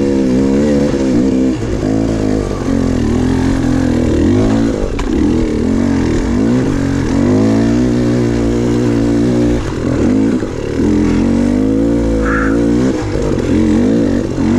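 Dirt bike engine under way on a trail, its pitch rising and falling over and over as the throttle opens and closes.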